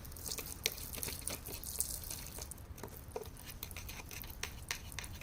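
Irregular light clicks and taps of small stones and grit being handled and picked at while digging out a stone, over a steady low rumble.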